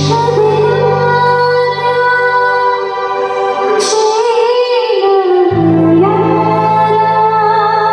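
Music: a woman singing a held, wavering melody over sustained low chords, with a sudden bright swell about four seconds in. The low chords drop out briefly around the middle and come back.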